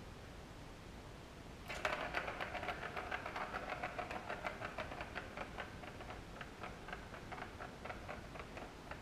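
Ball rolling and rattling around the plastic track of a Catit Circuit cat toy. It sets off suddenly about two seconds in with a fast run of clicks, then slowly dies away as the ball loses speed.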